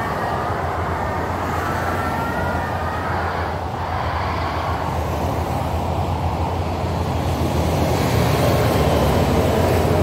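A steady low rumble that grows a little louder in the second half, with a wavering, whining tone over its first three seconds.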